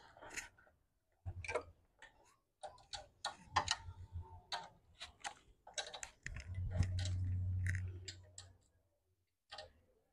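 Scattered metallic clicks and clinks of a spanner and small bolts being worked on a portable generator's engine. A low hum swells in past the middle, holds for about two seconds and fades.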